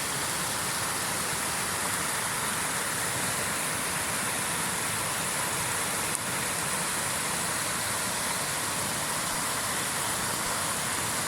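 Flash-flood water cascading down a normally dry streambed, a steady, unbroken rushing of churning water.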